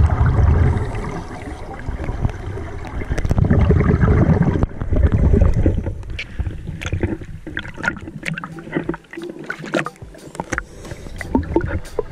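Scuba divers' exhaled regulator bubbles heard underwater: low rumbling, gurgling bursts in the first half, then a run of sharp clicks and crackles.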